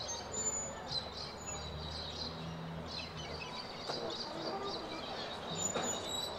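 Birds chirping in short repeated calls over faint outdoor background noise.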